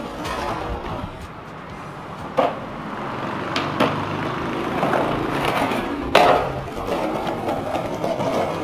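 Skateboard wheels rolling over paving stones, with sharp clacks of the board about two and a half, four and six seconds in, the last the loudest.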